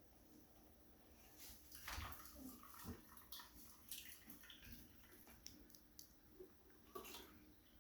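Faint, scattered knocks and clicks from a metal cocktail shaker and glass being handled, with a soft trickle of the espresso martini being poured.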